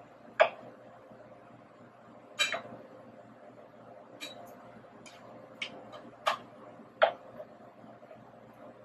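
Wooden spoon stirring diced potatoes and onions in a nonstick frying pan, knocking against the pan about six times at irregular intervals.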